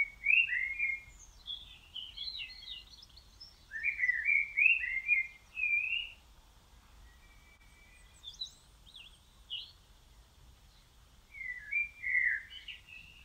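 A songbird singing in short warbling phrases of quick up-and-down notes, about five phrases separated by pauses of a second or two.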